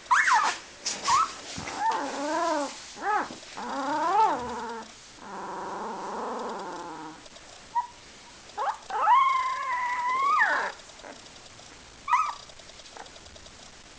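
A dog vocalizing in a string of short whines and yelps that rise and fall in pitch, with a rougher drawn-out call around six seconds in and a longer howl of about a second and a half around nine seconds in.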